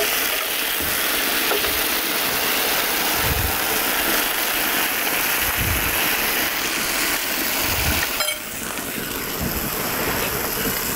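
Potato slices deep-frying in a wide pan of hot oil: a steady, dense sizzle and bubbling, dipping briefly about eight seconds in.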